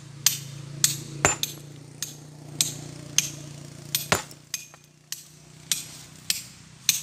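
Hammer blows in manual stone splitting: sharp, ringing metallic clinks of steel striking rock, about two a second.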